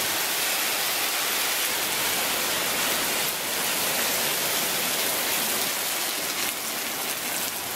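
Heavy rain pouring down in a steady, even hiss on a wet road and pavement.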